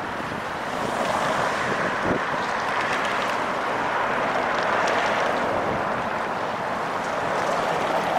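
Steady rushing noise of light-rail trains rolling on track, with a few faint clicks.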